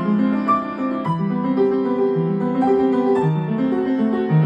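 Upright acoustic piano played four hands as a duet: a melody line over lower sustained accompanying notes, played steadily.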